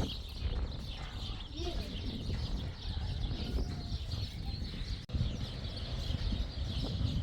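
Outdoor ambience of birds chirping over a steady low rumble, with faint distant voices.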